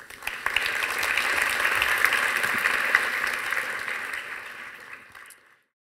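Audience applauding, many hands clapping at once. It swells just after the start, fades toward the end and then cuts off abruptly.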